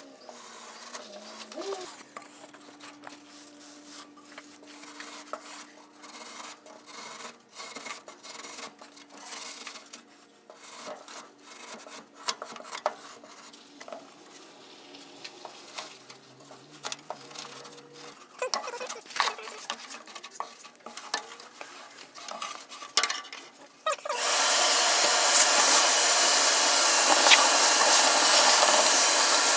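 Irregular scraping and rubbing with small knocks, as soft kiln insulation board is abraded and cut by hand to fit. About 24 seconds in, a loud motor starts suddenly and runs steadily.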